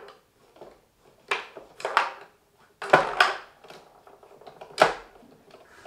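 Wooden tabletop foosball game in play: the ball and rod-mounted players knocking, about five sharp, irregular clacks with lighter ticks between.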